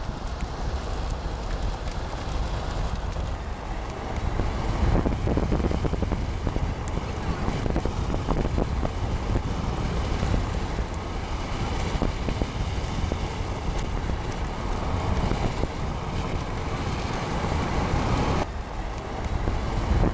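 Strong wind blowing across the microphone, a continuous rush with constant buffeting that rises and falls in strength.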